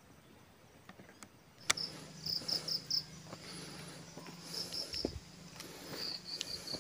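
A sharp click just under two seconds in, then insects chirping high: three short chirps of three or four quick pulses each, over a faint steady low hum.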